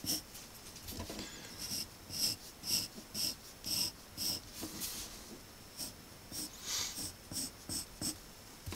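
Pencil sketching on paper: short scratching strokes, about two a second.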